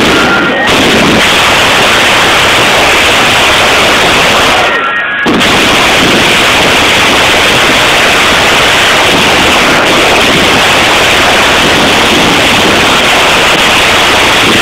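Ground fireworks going off all at once: fountains spraying sparks and firecrackers bursting, merged into a loud, unbroken, crackling rush that dips briefly about five seconds in.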